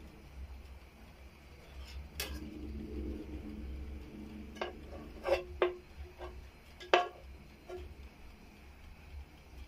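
Metal tongs clicking and clinking against a wire oven rack while sauced chicken drumsticks are turned: a handful of sharp clicks, most of them bunched in the middle and one near the end.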